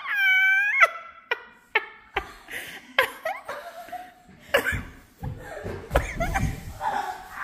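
A girl's high-pitched squeal held for about a second, then bursts of giggling and laughter, with a few thumps.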